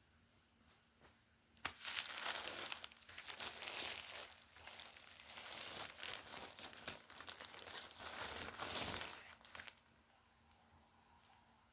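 Plastic packaging crinkling and rustling as it is handled and pulled open, starting about two seconds in and stopping a couple of seconds before the end.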